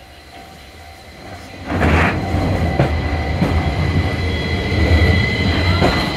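A Toyama Chihō Railway 9000-series Centram low-floor tram passing close by, growing suddenly loud after about a second and a half. It makes a heavy rumble from its wheels on the rails, a steady high whine and a few sharp clacks.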